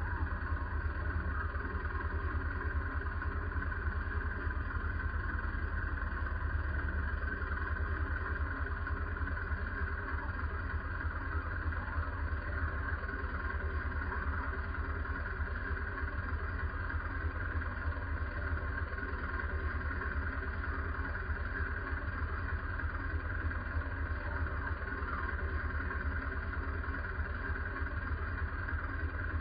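Bergepanther recovery tank's engine idling steadily, with an even low hum that neither rises nor falls.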